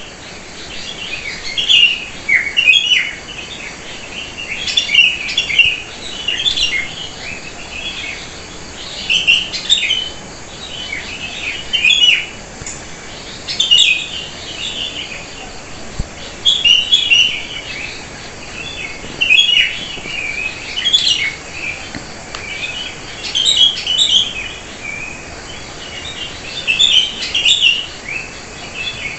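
Wild songbirds chirping and calling: short clusters of quick high notes, a new phrase every second or two, over a faint steady hiss.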